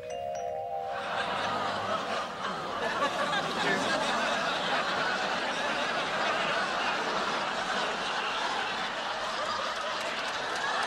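Studio audience laughing, building up about a second in after a brief rising chime run at the very start.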